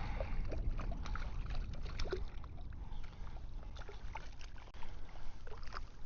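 Small water splashes and light knocks around a kayak, over a steady low rumble.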